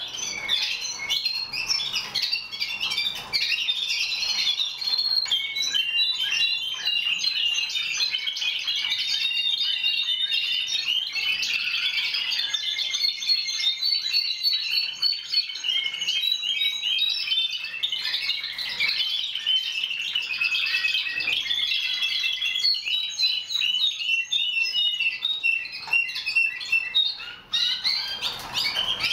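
Several male Timbrado Español canaries singing at once from their individual training cages: a continuous tangle of overlapping chirps and fast strings of repeated notes.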